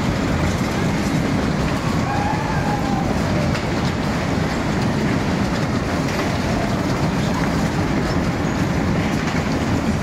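Vintage 1937 Lakin's fairground ride running at speed: its cars rumble and clatter steadily on their wheels as they whirl round the platform, with a few faint squeals.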